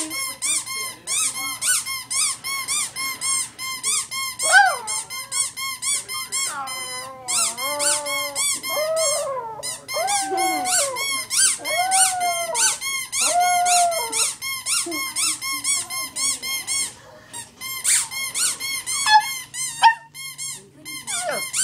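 A puppy howling in a run of long, wavering notes, about a second each, mostly in the middle of the stretch, over a fast, even series of high squeaks, about two or three a second, that keeps going throughout.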